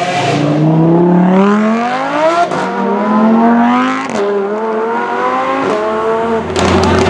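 A car engine accelerating hard through the gears: its pitch climbs, then drops at each upshift, three times, before a burst of broad noise near the end.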